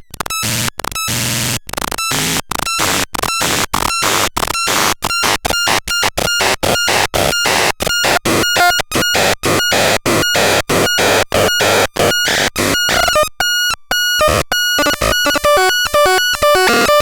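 Torturon C 20 electronic noise device putting out harsh hissing noise with a steady electronic beep tone, gated on and off in sharp pulses about twice a second. From about two thirds of the way in, the pulses quicken into a fast stutter and a lower tone joins.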